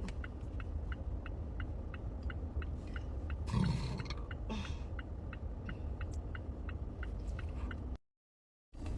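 Steady low rumble with faint, even ticking about three times a second. About three and a half seconds in comes a short low throaty sound, a small strained burp, with a fainter one a second later. The sound drops out briefly near the end.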